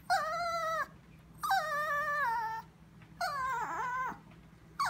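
Chihuahua whining: three long, high-pitched cries of about a second each, the pitch wavering and dipping in the third, with a fourth cry starting at the end.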